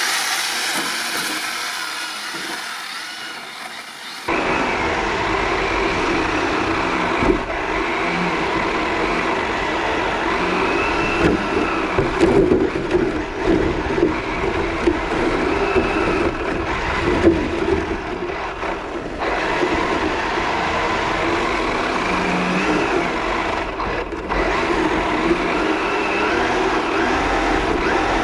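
Electric Kyosho DRX VE RC rally car driving and drifting on ice: the brushless motor whine rises and falls with the throttle over a rough, steady rumbling noise from the car on the ice. The sound changes abruptly about four seconds in, becoming heavier.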